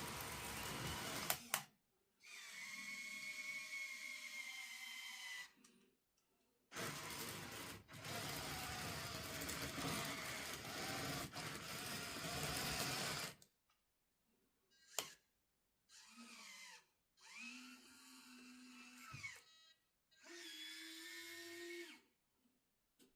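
Small electric motors of a 1:50 scale RC excavator and loader whining in short runs of one to three seconds, each at a steady pitch. Between the runs come two longer stretches of steady hiss.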